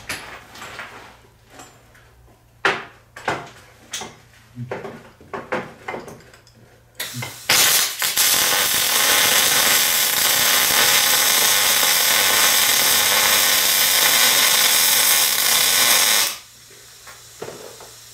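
MIG welding arc in short-circuit transfer, with wire fed at 240 inches a minute at about 18.8 volts: a steady, dense crackle, the sound likened to bacon frying, that runs for about eight seconds from a short first strike and stops abruptly. Before it there are light clicks and knocks of handling.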